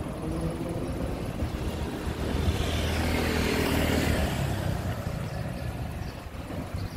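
Road traffic: a motor vehicle passes close by, its engine and tyre noise swelling in the middle and fading, over a steady hum of traffic.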